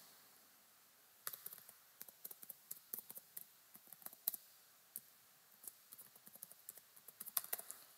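Faint, irregular clicks of typing on a computer keyboard, starting about a second in.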